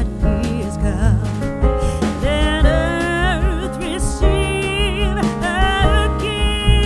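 Background music: a song with a singing voice over instrumental accompaniment and a steady beat.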